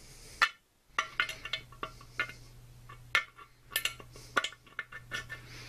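Steel shift rails clinking and knocking against the cast-iron case of a side-shift T-90 transmission as a rail is worked through its boss from the inside: a string of sharp metallic clicks.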